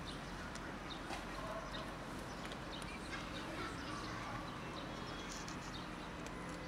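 Cat chewing dry kibble: scattered small crunches and clicks over a steady background hiss.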